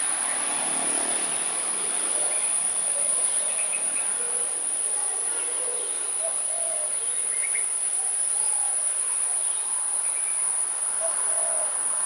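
A continuous, steady high-pitched insect trill, with faint scattered short sounds in the background.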